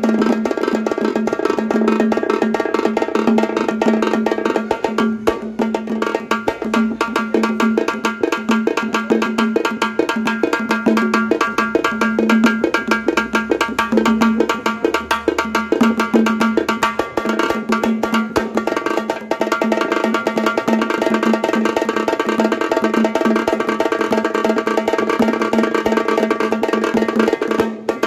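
Halgi frame drum and ghumke drum played together in a fast duet: rapid, unbroken drum strokes with no pause.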